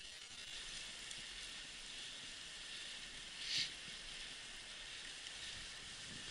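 Dog sled runners hissing steadily over packed snow while the husky team pulls, with one brief louder hiss about three and a half seconds in.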